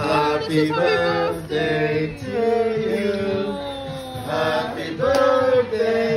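A small group, men's voices among them, singing a birthday song unaccompanied, with long held notes.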